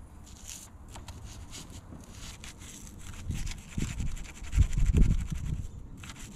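Toothbrush bristles scrubbing baking-soda paste on a corroded car-battery terminal, quick scratchy strokes in rapid succession. A low rumble comes in during the second half, louder than the scrubbing.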